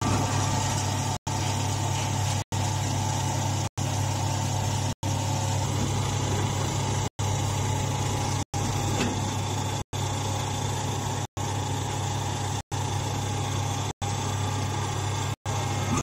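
Hydraulic power unit of a mini hay baler running steadily, its electric motor and pump giving a deep, even hum. The sound cuts out for an instant about every second and a quarter.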